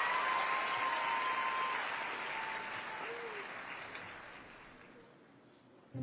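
Studio audience applauding, dying away steadily over about five seconds.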